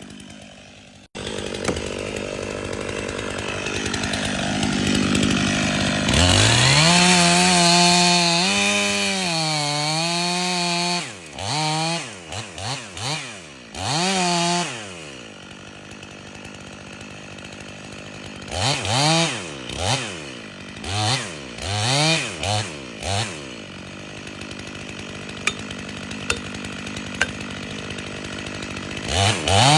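Stihl MS 500i fuel-injected two-stroke chainsaw run at full throttle for about five seconds, its pitch dipping and recovering as if under load in the wood. It then blips the throttle in short rev-ups with idling between, several in a row around the middle and again near the end.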